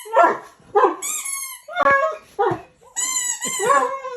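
Poodle crying: about four short, high-pitched whining cries, then a longer wavering cry from about three seconds in, set off by a squeaky sound.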